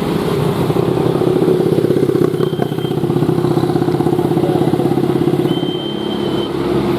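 Engine of a passing vehicle running with a fast, steady pulsing, easing off about six seconds in. Two short high tones sound over it.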